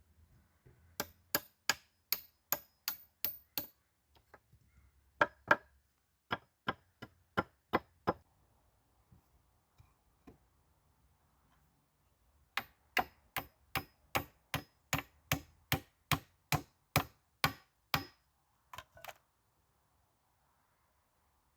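Runs of sharp, evenly paced strikes on wood, about two to three a second, with short pauses between the runs.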